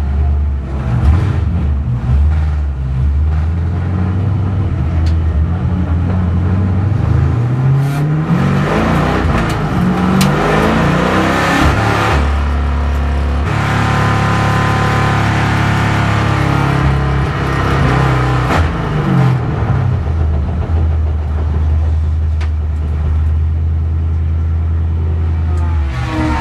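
Camaro race car's V8 heard from inside the cockpit, driving at low speed. It holds a steady speed for long stretches, and around the middle its pitch climbs and drops a couple of times through gear changes.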